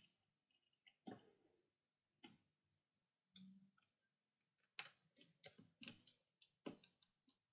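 Faint, scattered clicks and taps of a plastic extruder mount and its small fittings being handled and fitted onto the top of a 3D printer's frame, about ten over several seconds, coming closer together in the second half.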